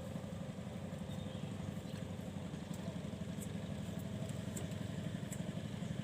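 A small engine running steadily at idle, a low, evenly pulsing hum, with a few faint ticks.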